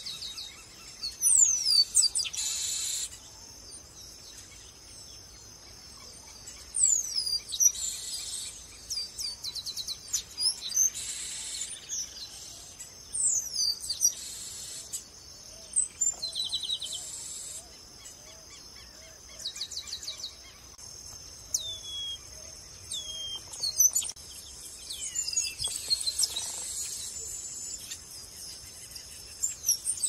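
Chestnut-capped blackbirds singing: repeated phrases of quick downward-slurred whistles and short rapid trills, many ending in a harsh buzzy wheeze, one phrase every two to three seconds. A steady high-pitched hum runs underneath.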